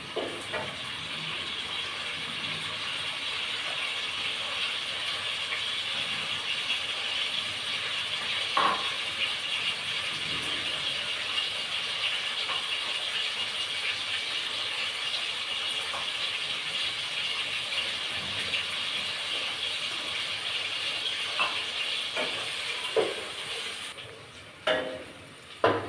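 Food frying in a steel pot on a gas burner: a steady sizzle, with an occasional knock of a wooden spoon against the pot. The sizzle drops away near the end and a couple of louder knocks follow.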